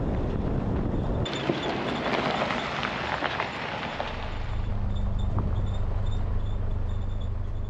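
Four-wheel-drive towing a caravan on a gravel track: rough tyre and road noise with small stone ticks, giving way about halfway to a steady low engine drone.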